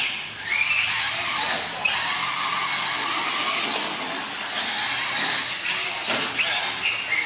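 Team Associated SC10 4x4 RC short-course truck's Novak 7.5 brushless electric motor whining, its high pitch rising sharply with each burst of throttle, several times over.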